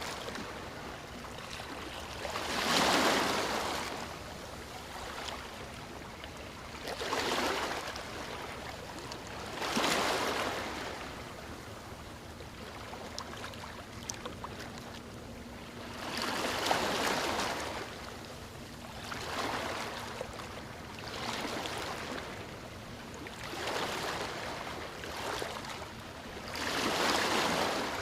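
Waves breaking on a beach and washing up the shore, about eight surges one after another every few seconds, with a steady hiss of surf between them.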